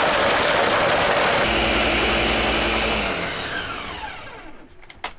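Ninja countertop blender running at full speed, blending a smoothie. About three seconds in it is switched off, and its motor whine falls away as the blades spin down.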